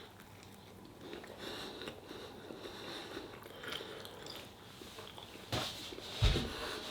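A person chewing and biting a mouthful of food, with a short knock and then a louder dull thump near the end.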